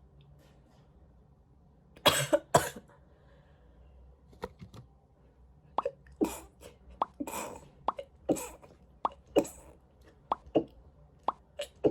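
A person sneezing and coughing, set off by a nasal swab: two loud bursts about two seconds in, then a string of shorter, sharp bursts every half second to second.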